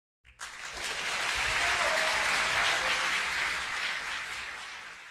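Applause from a crowd, rising within the first second, holding steady, then fading toward the end.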